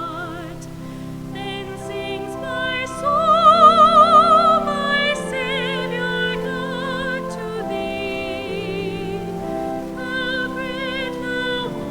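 Music: a solo voice singing in a classical style with wide vibrato over sustained accompaniment, swelling to a loud held note about three to five seconds in.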